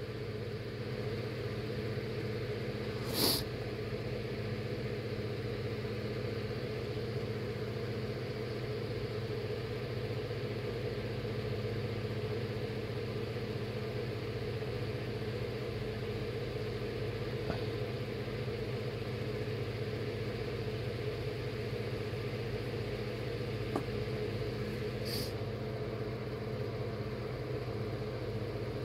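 A steady low mechanical hum that keeps going throughout, with a single brief knock about three seconds in.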